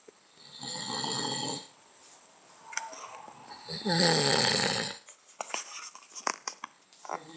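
A man snoring in his sleep: a breathy snore about a second in, then a louder, rattling snore of about a second near the middle, followed by a few faint clicks.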